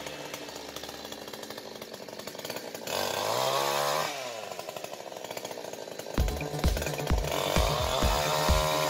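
Two-stroke chainsaw running at a low idle, revved up briefly about three seconds in and dropping back, then revved again a little after six seconds and held at high speed as it cuts into a bundle of branch wood.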